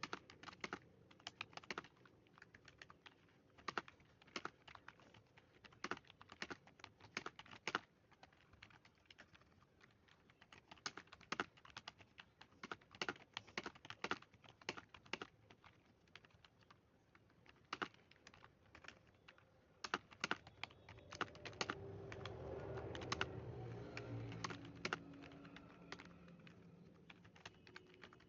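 Typing on a computer keyboard: irregular runs of keystroke clicks with brief pauses between words. About three-quarters of the way in, a low background hum swells for a few seconds under the clicks.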